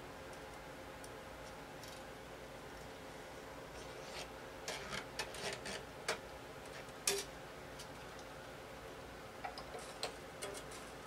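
Small clicks and taps of a string being threaded through the tuning-machine post on a Yamaha FG-251 acoustic guitar's headstock, and of a string winder being fitted to the tuner. The clicks come in a cluster about halfway through, one sharper click just after, and a few more near the end, over a faint steady hum.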